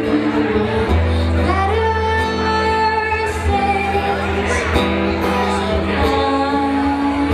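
Woman singing a song live while strumming an acoustic guitar, with long held sung notes over steady low accompaniment.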